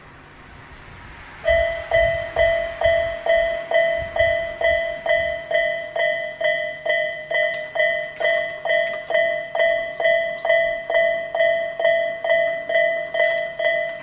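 Isesaki-type electronic warning bell of a Japanese railway level crossing. It starts about a second and a half in and rings a repeated two-tone ding a little over twice a second, the crossing's warning that a train is approaching.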